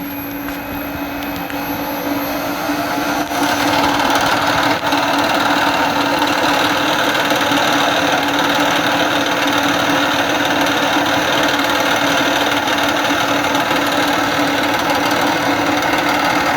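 Milling machine spindle starting up with a rising whine over the first few seconds, then running steadily while drilling a detent hole, growing louder and denser from about four seconds in.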